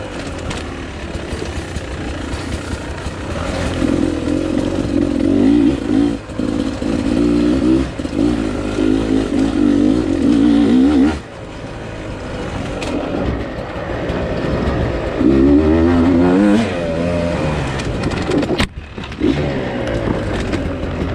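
Beta 300RR two-stroke dirt bike engine being ridden, its pitch rising and falling again and again as the throttle opens and closes. The engine sound briefly drops off about eleven seconds in, then picks up again.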